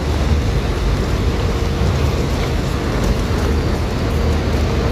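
Steady outdoor road-traffic rumble, heaviest in the low end, with a faint steady hum running through it.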